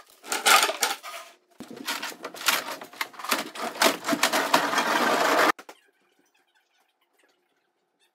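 Clattering and knocking of a heavy wooden coffee table being moved: a short burst, then a longer busy stretch of rattles and bumps that cuts off suddenly.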